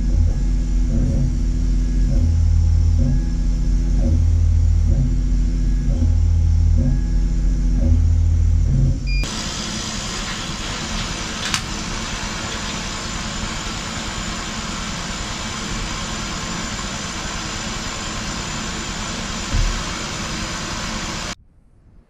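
Laser cutter at work: its head motors run in a steady mechanical pattern, with a strong low pulse about every one and a half seconds as the head traces the cut. About nine seconds in, this changes abruptly to a steady rushing noise from the machine's fans, then cuts off shortly before the end.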